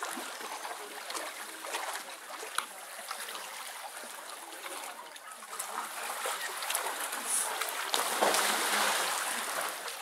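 Water in a penguin pool: a steady wash with scattered small splashes and trickles, a little louder near the end.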